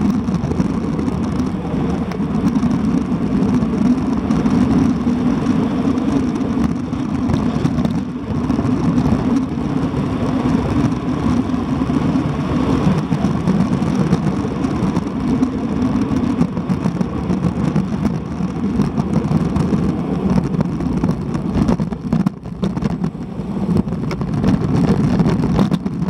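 Wind rushing over a bike-mounted camera's microphone during a fast road-bike descent, a steady loud roar of air that eases briefly a few seconds before the end.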